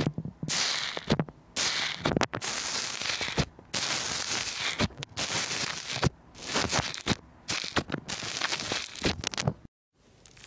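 A metal spoon stirring and pressing foamy, bubble-filled slime in a plastic tub: the small air bubbles crackle and pop in repeated strokes with short breaks. The sound cuts off abruptly near the end.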